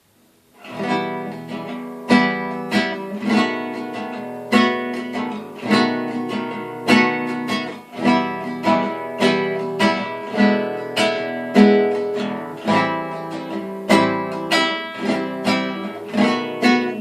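Acoustic guitar strumming chords in a steady, lively rhythm, with no voices.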